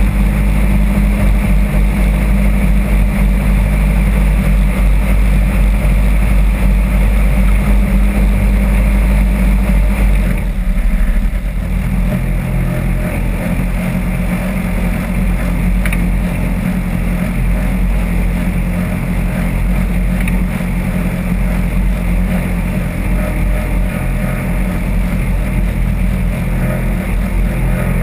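Off-road buggy's engine running steadily under load, heard from the cockpit. About eleven seconds in it changes note and drops a little in level, then runs on steadily.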